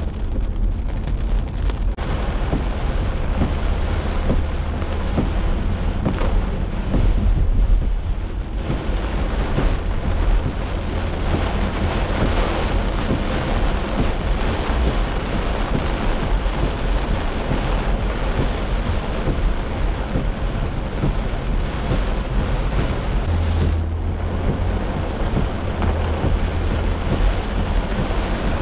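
Heavy rain pelting a moving car's roof and windshield, heard from inside the cabin over a steady low road rumble. The downpour grows heavier about eight seconds in.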